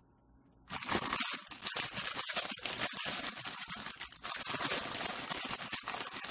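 Thin plastic bag of broccoli florets crinkling as a hand reaches in and pulls florets out. The crinkling starts under a second in and goes on in a dense run of crackles.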